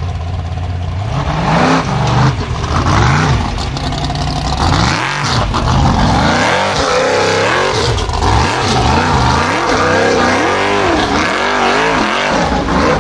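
Formula Offroad buggy's engine revving hard, the revs swinging up and down over and over as it claws up a steep loose gravel slope. Its spinning paddle tyres throw gravel and dust.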